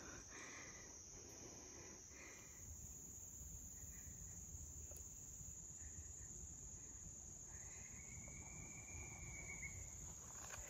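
Faint, steady high-pitched chorus of insects such as crickets, with a single faint drawn-out higher note about three-quarters of the way through.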